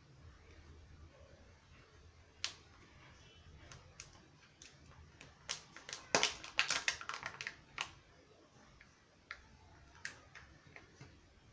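Hands handling a Kinder Joy egg's plastic shell and wrapping: scattered sharp clicks and crinkles, with a dense burst of crackling about six seconds in.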